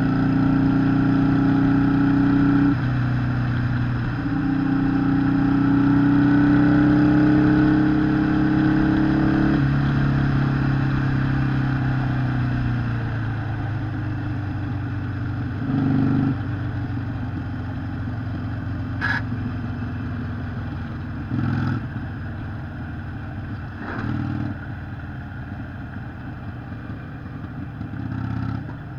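Harley-Davidson Sportster 883 SuperLow's air-cooled V-twin engine running, holding a steady pitch with a few step changes for the first ten seconds, then settling lower and quieter. Four short throttle blips come in the second half, and a single sharp click falls about two-thirds in.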